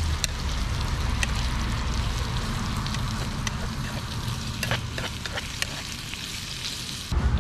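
Lamb pieces with onion and green pepper sizzling in a small frying pan on a portable gas cartridge stove, with a spoon stirring them and clicking against the pan. About seven seconds in the sizzling cuts off abruptly into a low rumble.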